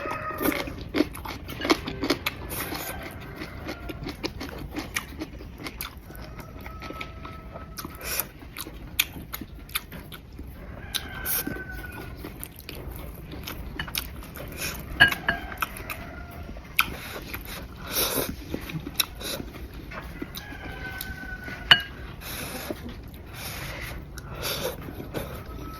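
Close-up eating sounds: chewing, with chopsticks clicking and tapping against a bowl at irregular moments.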